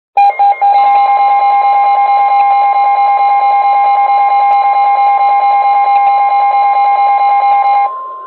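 Midland WR-120 weather radio sounding its alert alarm, a loud, rapid pulsing tone, over the steady NOAA Weather Radio 1050 Hz warning alarm tone: the signal that a severe weather warning is about to be read. The pulsing alarm cuts off near the end, leaving the steady tone on its own and quieter.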